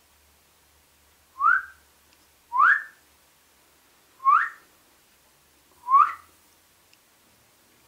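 Four short whistles, each sliding quickly upward, spaced a second or more apart.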